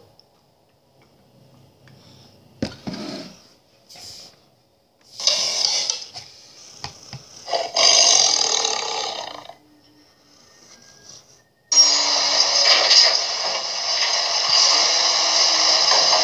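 Audio of a comedy clip playing through a phone's speaker. Short noisy bursts come first, then about twelve seconds in a loud, continuous noisy sound starts suddenly.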